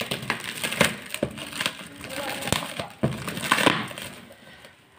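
Plastic packaging crinkling and rustling as it is handled and pulled open, with many sharp crackles and a louder rustle about three and a half seconds in.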